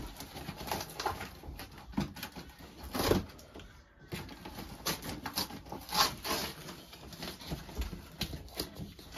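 Scissors cutting open a cardboard box, with the cardboard rustling and knocking as it is handled: a string of uneven scrapes and knocks, the loudest about 3 and 6 seconds in.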